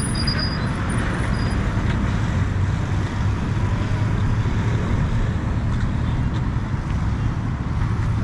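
Road traffic on a busy city street: a steady din of car, bus and truck engines and tyres passing close by.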